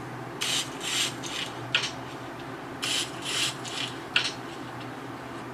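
A run of short, scratchy rubbing and rustling noises, about eight of them at irregular intervals.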